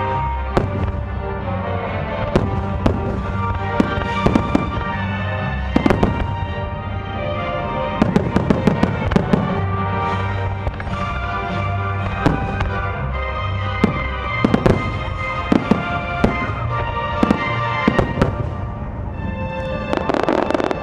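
Aerial firework shells bursting over music: a string of sharp bangs and crackles, with a rapid volley about eight seconds in and further clusters near the middle and the end.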